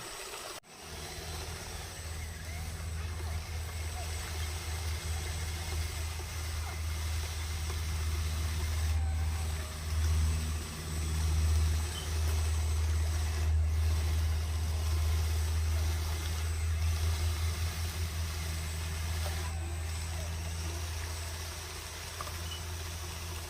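RC bulldozer running with a steady low drone that swells twice, about ten and twelve seconds in.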